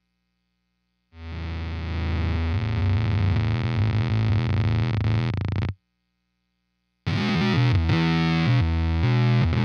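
Electric guitar played through an EarthQuaker Devices Bit Commander analog octave synth pedal, giving a heavy synth-like octave tone. One passage starts about a second in and cuts off suddenly after about four and a half seconds. After a short gap, choppier notes come in near the end.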